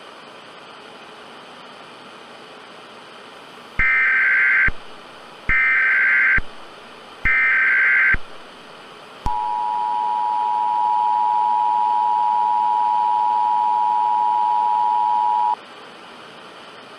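Emergency Alert System tones: three short bursts of warbling SAME header data, each just under a second, then the two-tone attention signal held steady for about six seconds, all over a constant hiss. The sequence marks the start of an emergency alert broadcast.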